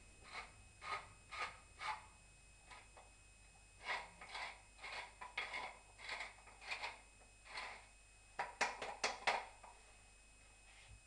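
Large wooden pepper mill grinding peppercorns: short grinding strokes, one per twist. They come in three runs with pauses between, and the last run is quicker and louder.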